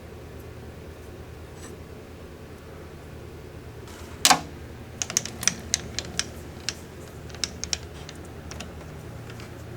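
A workpiece being reset in a metal lathe chuck: a sharp metal knock about four seconds in, then a quick, irregular run of light metallic clicks, over a steady low hum.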